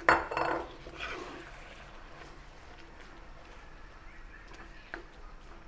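Wooden spatula stirring beef and onion rings through a thick soy-sauce gravy in a nonstick wok, a wet scraping that is loudest in the first second and then turns faint.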